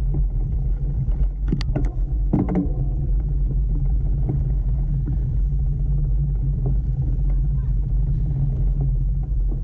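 Steady low rumble of wind and rolling tyres on a camera mounted on a bicycle riding a dirt singletrack, with a few sharp rattles from the bike over bumps between about one and a half and two and a half seconds in.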